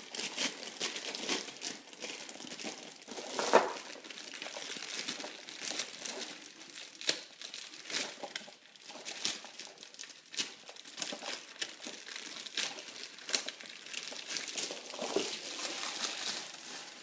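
Packaging crinkling and rustling as it is handled and unwrapped, with many short crackles and one sharper, louder crackle about three and a half seconds in.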